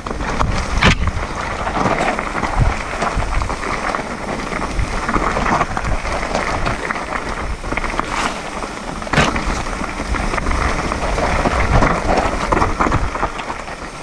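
Electric mountain bike descending a forest trail: tyres rolling over dirt and stones under a steady low rumble, with the frame rattling and giving sharp knocks over bumps, several of them a second or so apart.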